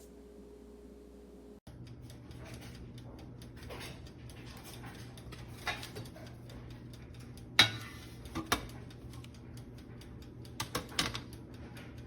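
Scattered light clicks and clatter of handling, with one loud click about seven and a half seconds in and a quick run of clicks near the end, over a low steady hum.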